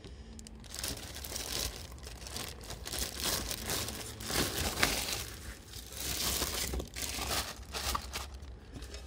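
Clear plastic wrapping bag crinkling and rustling irregularly as a metal laptop stand is handled and pulled out of it.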